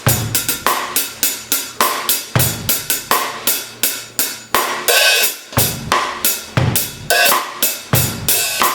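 Zildjian 13" A Custom Mastersound hi-hats played in a drum-kit groove, with quick, tight hi-hat strokes several times a second over bass drum and snare. About five seconds in there is a longer, washier stroke.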